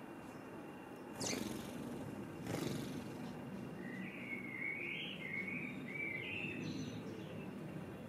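Two brief wing whooshes, about a second in and again about a second later, as house sparrows take off from the ground, then a small bird chirping a warbling phrase for a few seconds, over steady low background noise.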